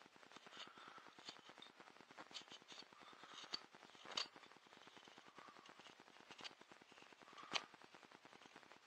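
Faint knife cuts whittling a small wooden paddle handle: quiet scraping slices with scattered small clicks, the sharpest about four seconds in and another near the end.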